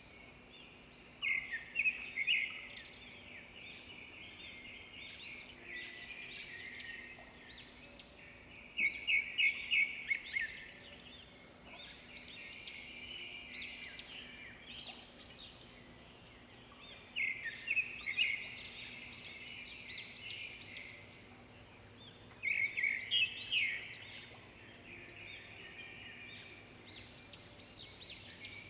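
Small songbirds chirping and twittering in a continuous chorus. Every several seconds it swells into a louder bout of fast, repeated short high notes.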